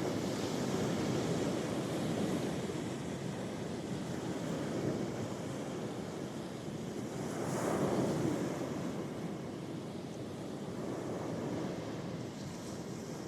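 Ocean waves washing onto the shore in a continuous rush, with one wave swelling louder about halfway through before easing off.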